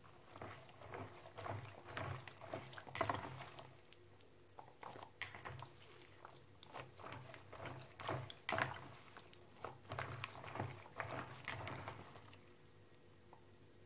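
Okra pods being handled by hand: irregular crisp clicks and rustles that stop about twelve seconds in, over a faint steady hum.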